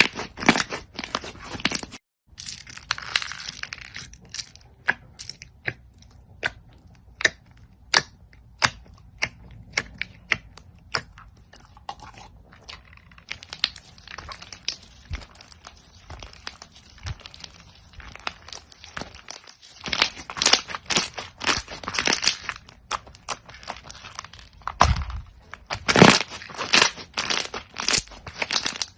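Crunchy slime being squished, giving a run of sharp crackles and pops. The crackling breaks off for a moment about two seconds in and is thickest in the last third.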